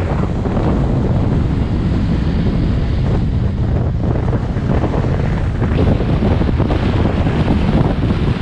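Wind buffeting the microphone of a camera on a Mercedes-Benz 190E driving along a gravel dirt track: a steady, loud low rumble with no clear engine note standing out.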